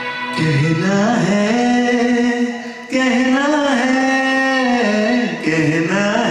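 A man singing a Hindi film song into a handheld microphone over backing music, in long held, bending phrases with brief breaths about three and five and a half seconds in.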